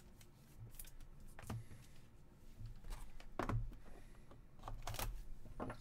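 Hands handling trading cards and cardboard card boxes on a tabletop: a few soft taps and knocks, the loudest with a dull thud about halfway through.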